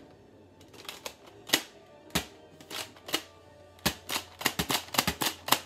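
Nerf Fortnite blaster dry-fired with no darts loaded: a string of sharp plastic clicks and snaps as it is primed and fired. They come about once a second at first, then quickly one after another near the end.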